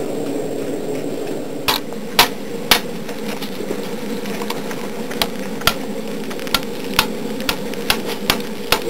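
Hammer blows on iron at a bloomery smelt: three scattered strikes, then, about five seconds in, a steady run of about two blows a second, over a steady low rushing noise.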